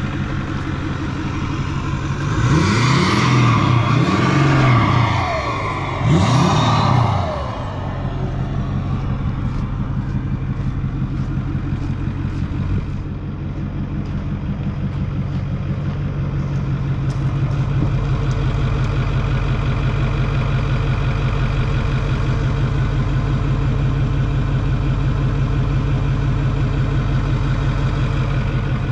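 Ford F250 pickup's engine idling, revved twice a few seconds in, each rev rising and falling back to idle, then idling steadily.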